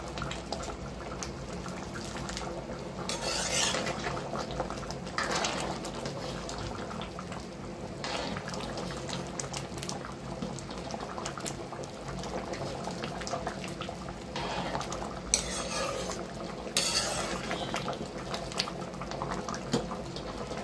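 Steel ladle stirring thick aloo matar curry in a metal pan, clinking and scraping against the pan with wet, sloppy stirring. Several longer scrapes come at about 3, 5, 8, 15 and 17 seconds in.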